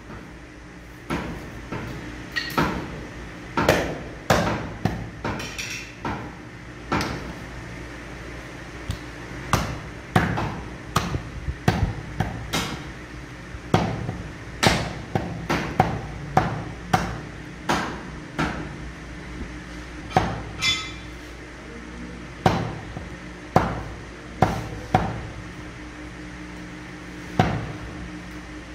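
Heavy meat cleaver chopping meat into pieces on a wooden tree-trunk chopping block. About thirty sharp chops, roughly one a second at an uneven pace, with a few short pauses.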